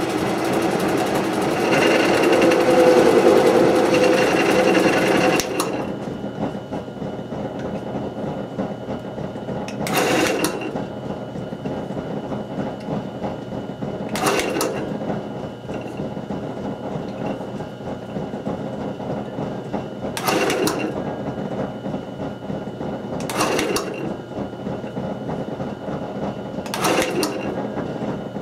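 Craftex wood lathe running with a spinning wooden blank, then slowed about five seconds in to a quieter steady hum with a thin whine at low speed. Five short rushes of noise rise over the hum later on.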